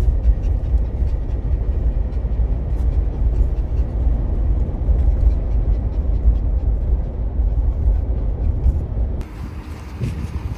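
Jeep driving on the road, heard from inside the cabin: a steady low rumble of engine and road noise. About nine seconds in, the rumble drops off to a quieter, hissier sound.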